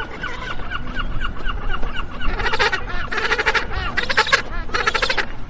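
Magellanic penguin braying: a run of short, quick notes about three a second, then from about two seconds in four loud, drawn-out donkey-like brays.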